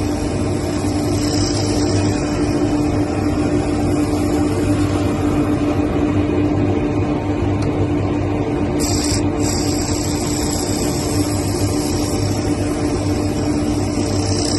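Woodworking power tool running steadily, a constant motor hum with a high hiss from the cut, the hiss dropping out briefly about nine seconds in.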